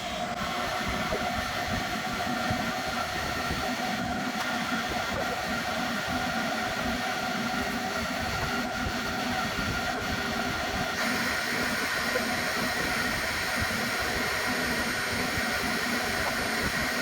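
A steady hissing rush with a few steady whining tones in it, from something running continuously; it turns a little brighter about eleven seconds in.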